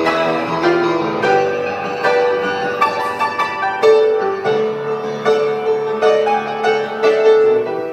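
Upright piano played by hand: struck notes over sustained chords, with one note held for several seconds in the second half.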